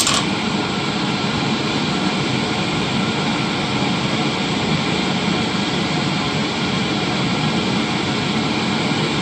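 A steady, loud rushing noise, even and without rhythm or pitch changes.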